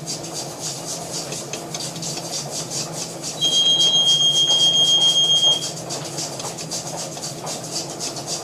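Jewelry laser welder firing a rapid series of pulses, each a sharp tick, over the machine's steady hum, while small porosity pits in a gold ring are filled. A steady high beep-like tone sounds for about two seconds in the middle.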